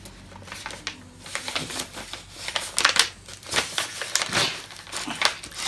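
A paper envelope and greeting card rustling and crinkling in irregular short scrapes as the card is pulled out of the envelope.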